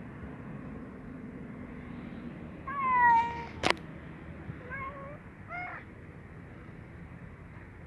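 Ginger cat meowing: one longer, slightly falling meow about three seconds in, then two short meows about a second and two seconds later. A sharp click sounds just after the first meow.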